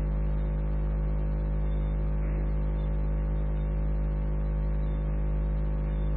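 Steady hum with several fixed tones and a low rumble under a light hiss, the background noise of an old talk recording during a pause in speech.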